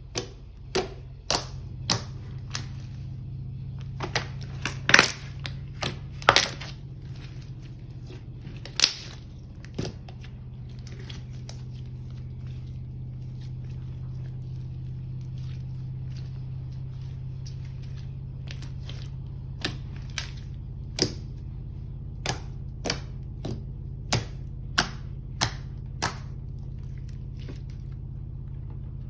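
Slime being worked by hand, giving sharp, irregular clicks and pops of trapped air, with a quieter stretch in the middle. A steady low hum runs underneath.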